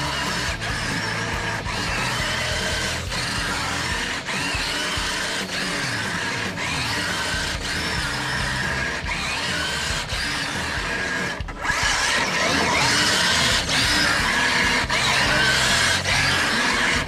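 Redcat Gen8 RC crawler's electric motor and geartrain whining as it is driven through a mud pit, the pitch rising and falling with the throttle. About two-thirds of the way through it cuts out for an instant, then comes back louder.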